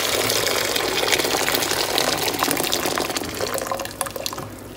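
Hot, kettle-boiled water poured in a steady stream into a non-stick pot, splashing as it fills. The pour thins and fades near the end.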